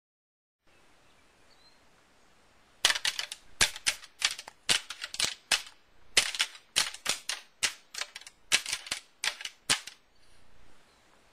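A pair of deer antlers rattled and knocked together by hand, a long irregular run of sharp clacks starting about three seconds in and stopping near the end. This is antler rattling, which imitates two bucks sparring to draw a deer in.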